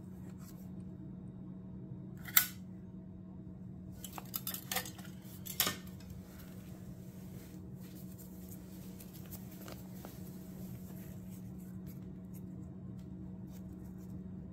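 Metal caulking gun clicking as its trigger and plunger work: one sharp click about two seconds in, then a few more clicks between four and six seconds, over a steady low hum.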